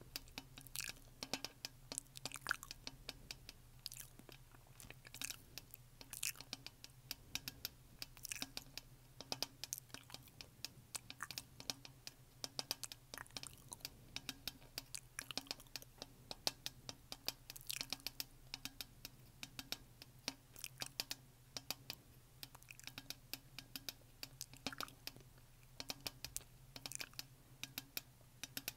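Close-up wet mouth clicks and smacks, irregular and several a second, made with the mouth at a plastic shaker bottle's lid.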